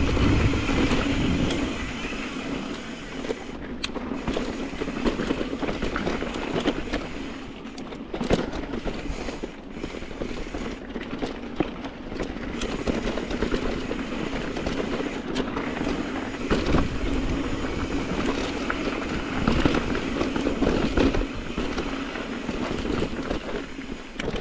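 Mountain bike rolling fast down a dirt and rocky singletrack: steady tyre and wind noise with frequent sharp knocks and rattles as the bike hits rocks and bumps.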